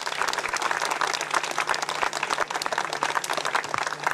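A crowd applauding, many hands clapping together steadily.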